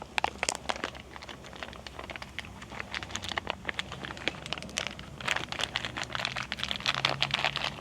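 Irregular light clicks, taps and crinkling from hands working at the opened inside of a pickup's door, busier in the second half, over a faint low steady hum.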